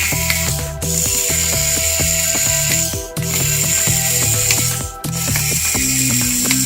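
Background music with a steady beat: sustained notes over a stepping bass line and a bright hissing layer that cuts out briefly about every two seconds.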